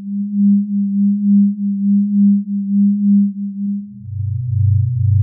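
Star quake, stellar oscillations converted into audible sound: a low, pure hum that swells and fades about twice a second, dropping to a lower pulsing hum about four seconds in.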